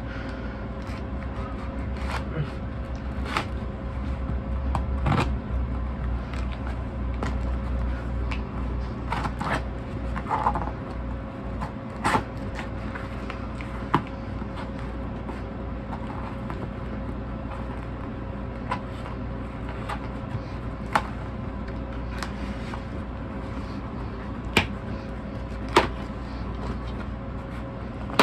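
Folding pocket knife cutting through packing tape and a cardboard record mailer, with scattered scrapes and several sharp snaps as the cardboard is slit and handled. A steady low hum runs underneath.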